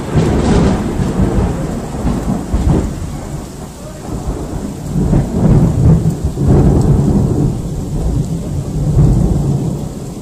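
Loud rolling thunder over steady rain, rumbling in waves that swell again about halfway through and fade off near the end.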